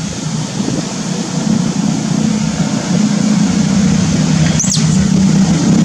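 A steady low motor hum, with one short high chirp about four and a half seconds in.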